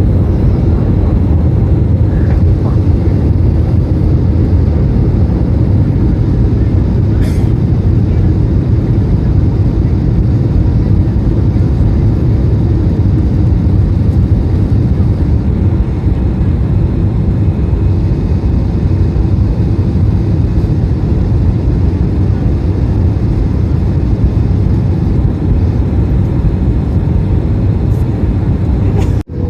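Steady, loud cabin noise inside an Airbus A321 in flight: an even engine and airflow rumble, heaviest in the low range, with a brief drop just before the end.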